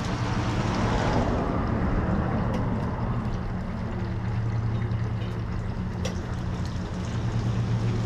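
Steady low motor hum under an even rushing noise, with a couple of faint clicks.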